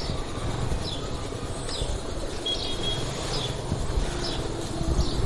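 Street ambience: a steady low rumble with occasional bumps, and a short, high, falling chirp that repeats a little more than once a second.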